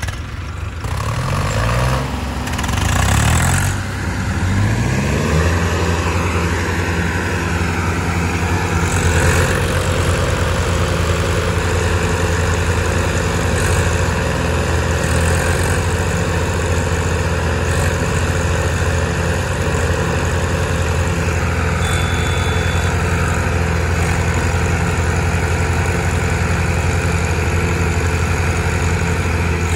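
Several diesel tractor engines revving up over the first few seconds, then running steadily at high revs under heavy load as they strain together to pull a loaded trolley stuck in mud.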